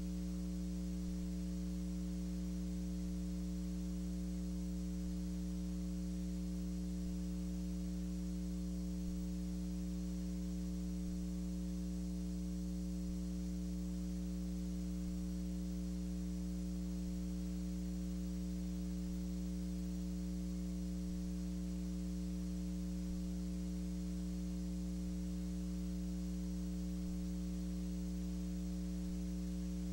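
Steady electrical mains hum with its overtones, over a faint hiss; it never changes and no other sound is heard.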